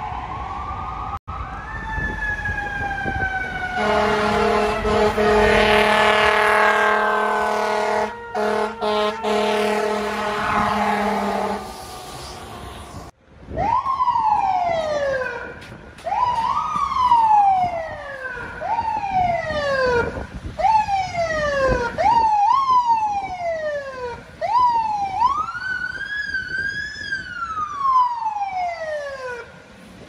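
Emergency vehicle siren gliding, with a long steady horn blast held for several seconds. Then an FDNY Field Communications Unit van's siren wails, each cycle rising quickly and falling slowly, repeating about every two seconds.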